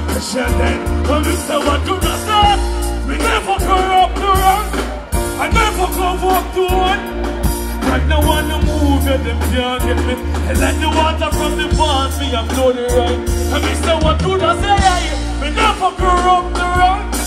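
Live dancehall music played loud through a concert PA: a heavy, steady bass line and beat under a male vocalist singing into a microphone.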